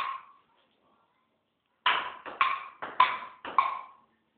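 Table tennis ball bouncing in a series of sharp clicks with a short ring: one hit at the start, then after a pause of about a second and a half, about seven quick hits in two seconds.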